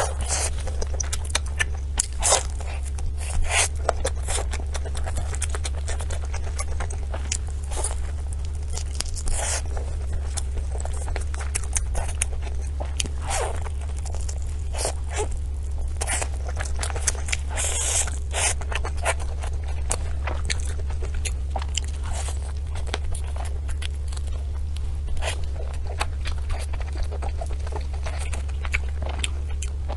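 Close-miked eating of desserts: crunching bites and chewing, with many irregular sharp crackles, over a steady low hum.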